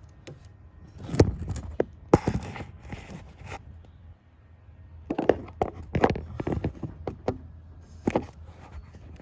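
Irregular metallic clicks, knocks and scrapes of hand tools and bolts being worked loose around the ignition coils on an engine, with short rustling between the knocks.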